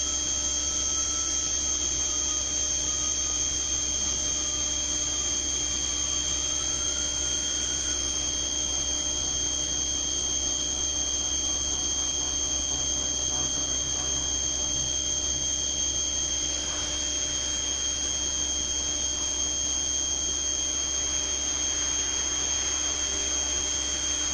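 CNC milling machine's high-speed spindle running steadily as the end mill cuts a clamped workpiece: a constant high-pitched whine over a low machine hum.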